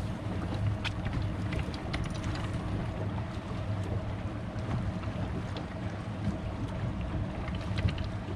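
A boat's motor running steadily, with wind buffeting the microphone and water sounds around the hull, and a few light clicks scattered through.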